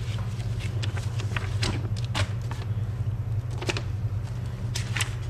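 Scattered light clicks and rustles of paper being handled, as an instruction booklet is leafed through, over a steady low hum.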